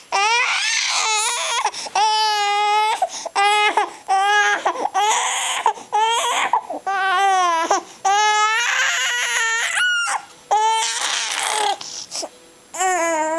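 Infant crying in a string of short high-pitched wails, one after another with brief breaths between, pausing briefly near the end before another wail.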